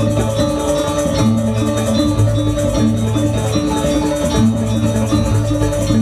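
Stage music: a repeating pattern of low held notes over fast, steady percussion.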